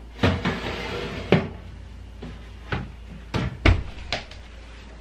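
A glass baking dish and the oven rack scraping as they are pushed into an oven, ending in a sharp knock. Then a few knocks and a heavier clunk as the oven door is swung shut.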